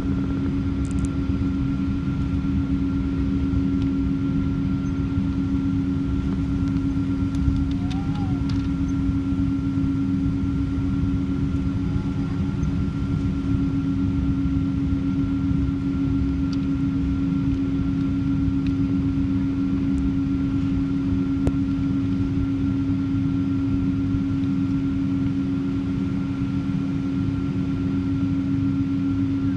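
Airliner's jet engines heard from inside the cabin while taxiing: a steady hum with a fixed mid-low tone and a fainter higher one, over a dense low rumble.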